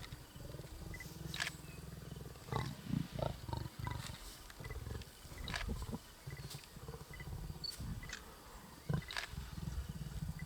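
Lions growling and snarling: a low, rumbling growl that swells to louder snarls about three seconds in and again about nine seconds in.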